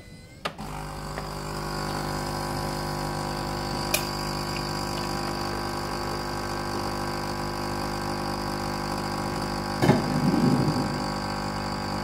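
Nescafé Dolce Gusto capsule coffee machine's 15-bar pump starting with a click about half a second in and running with a steady hum, pushing hot water through a coffee capsule to brew into a glass of milk. A brief louder burst of noise about ten seconds in.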